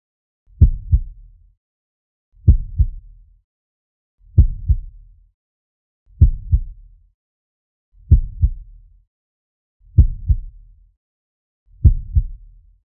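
Slow heartbeat sound effect: seven deep double thumps, lub-dub, about one every two seconds.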